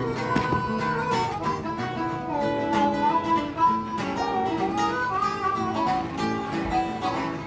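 Acoustic guitar fingerpicking a country-blues tune as an instrumental break between verses, with a second instrument playing long, sliding melody notes over it.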